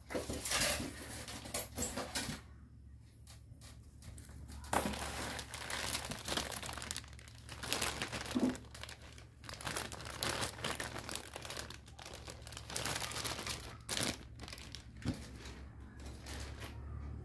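Plastic packaging being handled inside a cardboard box: a clear plastic bag and foam wrap crinkling and rustling in irregular bursts, with a few sharp clicks.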